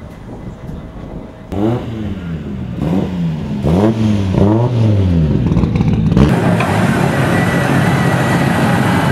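Rally car engine on a gravel stage, revving hard with its pitch rising and dropping several times as it shifts and lifts, then a loud even rush of noise takes over from about six seconds in.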